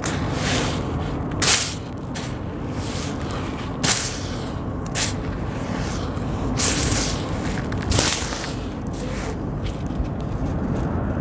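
Hands crumbling and raking dry, gritty sand-cement crust and sifting the loose grains, giving about five sharper hissing, gritty crunches over a steady low rumble.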